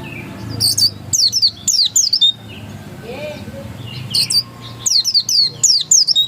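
Pleci dakun white-eye singing insistently: rapid runs of high, sharply falling notes. One burst comes about a second in and another from about four seconds in, over a low steady hum.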